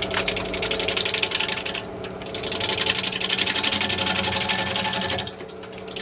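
Wood lathe running while a turning tool cuts the bark off the rim of a spinning bowl: a rapid, even clicking over the lathe's steady hum. The cutting stops briefly about two seconds in and again near the end.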